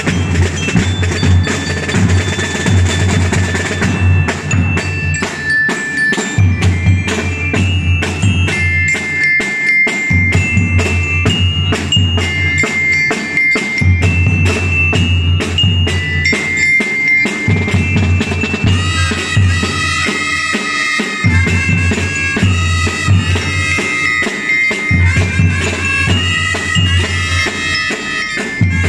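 Drum and bugle band playing: marching drums beat a steady rhythm while a bell lyre rings out a melody over them. About two-thirds of the way in, more held notes join in, thickening the tune.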